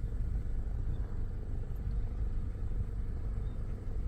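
Steady low rumble of a car heard from inside its cabin, the engine running.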